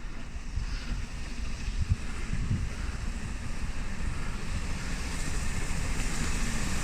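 Wind buffeting the microphone in gusts, while the noise of an approaching train grows steadily louder, its hiss strengthening over the last couple of seconds.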